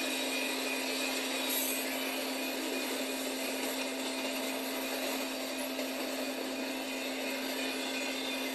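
Double-stack intermodal freight train passing close by: a steady, thin rolling noise of steel wheels on the rails with no deep rumble, and a constant hum underneath.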